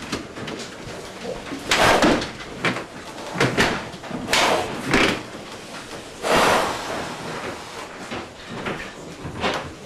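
Sows and their metal stalls in a pig shed: a series of loud, harsh bursts about a second apart over a steady background din.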